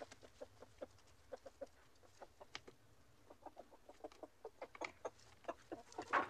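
Chickens clucking quietly: short, soft clucks and clicks several a second, with a louder call near the end.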